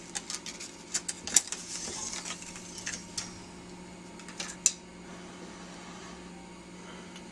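Scattered short clicks and taps over a steady low hum. The clicks are thickest in the first few seconds, with the sharpest ones about a second and a half and nearly five seconds in, and then die away to the hum alone.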